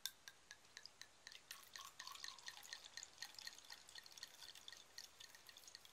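White wine poured from a bottle into a drinking glass: faint, irregular splashing and plopping, densest about two to three seconds in, with a sharp tick at the very start.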